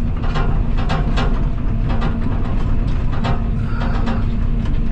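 Diesel engine of a tracked excavator running steadily, heard from inside its cab, with irregular metallic clanks and knocks from the machine working.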